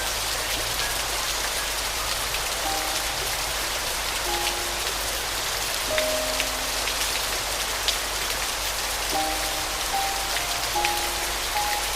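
Steady rain falling, with occasional sharper drops, under soft, slow piano notes played one at a time, a little more often near the end.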